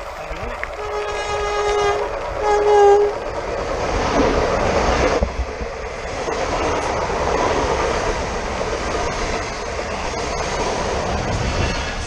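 Renfe commuter electric train sounding its horn twice, a longer blast and then a shorter, louder one, then passing close by with a loud rush of wheels on the rails.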